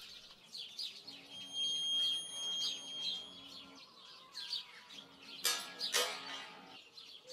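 Small birds chirping over and over, with soft background music holding a steady high tone and low notes. Two sharp clicks come about five and a half and six seconds in.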